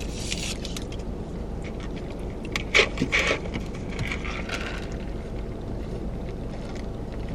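Steady low rumble of a car's cabin, with a short burst of rustling and handling noise about three seconds in.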